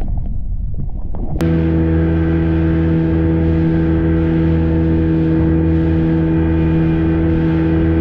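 Boat engine running at a steady speed, an even hum that starts abruptly about a second and a half in and stops abruptly near the end.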